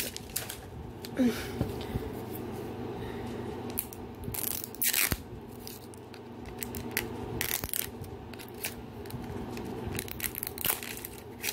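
Plastic wrapper being torn and peeled off an L.O.L. Surprise! toy ball, heard as short, scattered crinkling tears.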